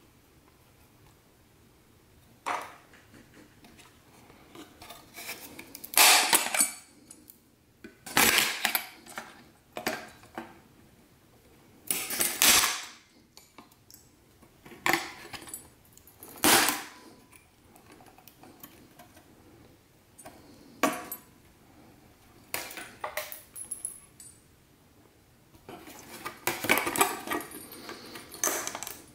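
Hard scrap parts from dismantled TVs being handled and set down: irregular clattering and clinking, about a dozen separate bursts with a longer run of clatter near the end.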